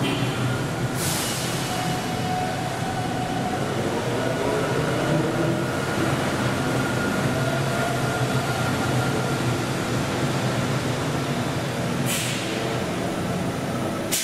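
Electric trolleybuses of the Tateyama Tunnel Trolleybus moving through the tunnel station: a steady hum with faint whining tones over it. Short bursts of hissing come about a second in and twice near the end.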